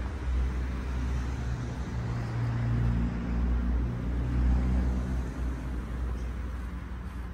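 Low engine rumble of road traffic, a motor vehicle's hum swelling about halfway through and then fading.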